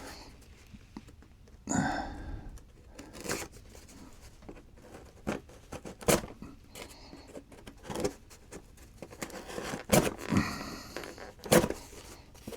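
A cardboard shipping box being opened by hand: tape tearing and cardboard scraping in irregular short bursts.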